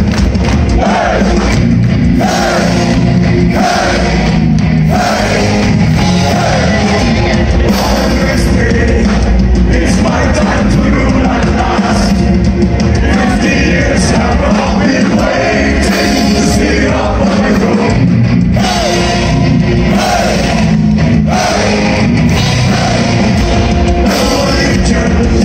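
Power metal band playing live and loud: electric guitar and drums with a male lead vocal singing over them.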